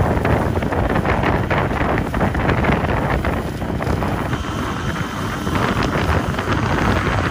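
Wind buffeting the microphone on a moving boat, over the steady rush of the boat's motor and the water.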